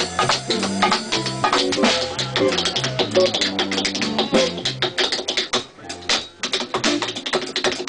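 Tap shoes striking a wooden floor in quick improvised rhythms over a jazz band with a bass line; about halfway through the bass drops away and the taps carry on alone.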